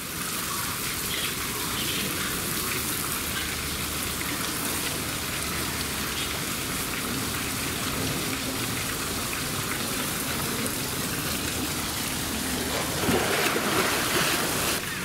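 Steady hiss of splashing, pattering water, louder for a couple of seconds near the end.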